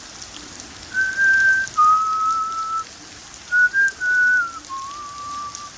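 A person whistling a slow tune of about five long, held notes that step downward, over steady falling rain.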